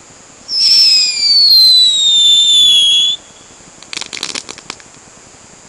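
A whistling firework: a loud whistle sliding steadily down in pitch for about two and a half seconds, then a quick string of crackling pops about four seconds in.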